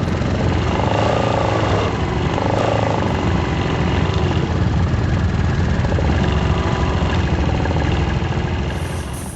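ATV engine running steadily under way, with a heavy low rumble; it drops away near the end.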